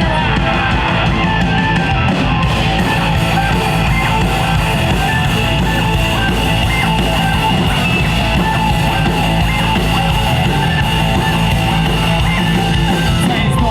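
Live rock band playing an instrumental passage: distorted electric guitars, bass and drum kit playing steadily, with no vocals.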